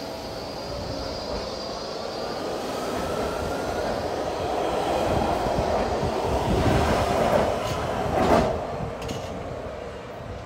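Baltimore Metro SubwayLink heavy-rail train pulling out of a station. Its motors whine, rising in pitch, and the rumble and wheel noise build as the cars roll past, peaking with a loud clack near the end before fading as the train leaves.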